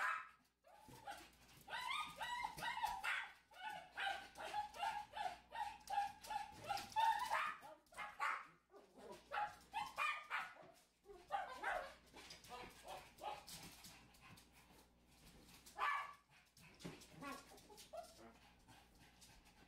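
Small pet dogs whining and yipping with occasional barks, in repeated bursts. The bursts are densest in the first eight seconds, grow sparser and fainter after that, and one more burst comes about sixteen seconds in.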